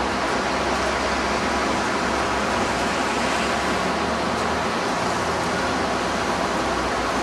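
Steady street traffic noise with the low hum of bus engines running as buses move slowly along the road.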